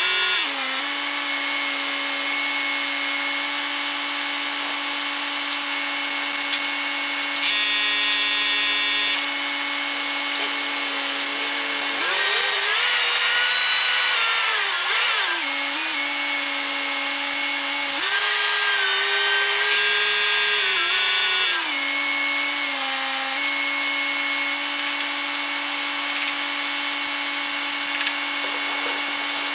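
Truck-mounted boom crane's engine running steadily, its pitch rising twice for several seconds as it revs up to hoist roof trusses, with a brief higher whine twice.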